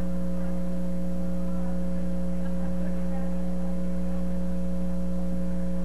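Steady electrical hum with a buzz to it, unchanging throughout, and faint voices barely showing beneath it.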